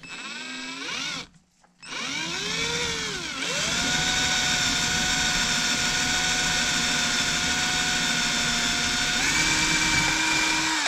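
Cordless hand drill with a small twist bit boring a starter hole through a thin wooden blank. There is a short whine as the motor spins up and stops, then after a brief pause it speeds up again and runs at a steady high pitch for several seconds. Its tone shifts near the end.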